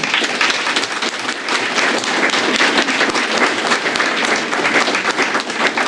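An audience applauding: dense, steady clapping from many hands, loud throughout.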